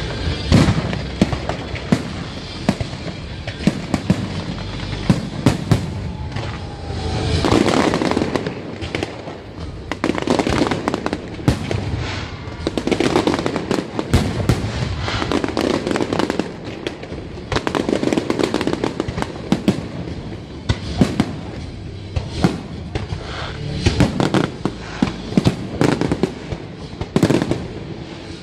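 Aerial fireworks shells bursting overhead in a dense barrage: many sharp bangs in quick, irregular succession.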